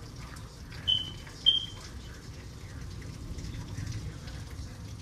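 Two short, high chirps about half a second apart, a second in, over a steady low rumble of heavy rain.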